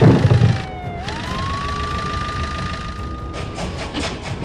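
Power drill whine dropping in pitch under load as it bores through a block wall, with the wall crashing apart in the first half-second. About a second in the whine climbs back up to free speed and holds steady, then sags again near the end.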